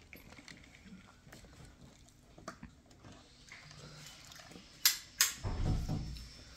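Quiet eating and drinking noises at a table: faint scattered clicks, then two sharp clicks about a third of a second apart about five seconds in, followed by a short low rumble.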